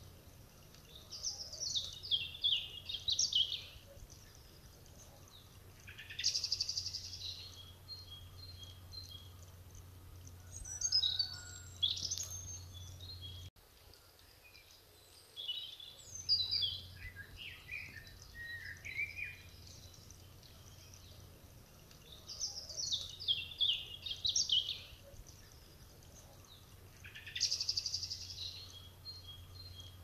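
Songbirds singing outdoors: short high phrases every few seconds, several of them quick descending runs of notes. Under the song is a faint steady low hum, which drops out for a couple of seconds midway.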